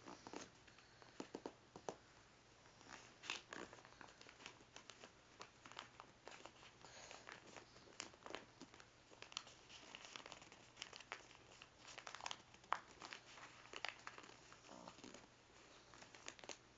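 Faint, irregular rustling and crinkling of paper being folded and creased by hand, with scattered small clicks and taps.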